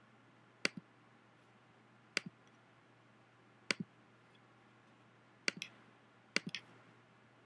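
Computer mouse button clicks, six in all, spaced about a second and a half apart and closer together near the end. Each is a sharp press followed by a softer release as colours are picked and applied.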